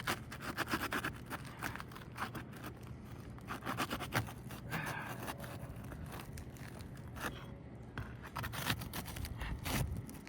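Brittle old asphalt shingles being pried up from their sealant strip: irregular scraping, crackling and tearing.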